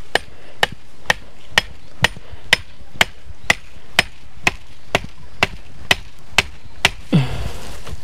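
Repeated sharp blows of a hand tool, a steady rhythm of about two strikes a second, stopping about seven seconds in with one duller thud after.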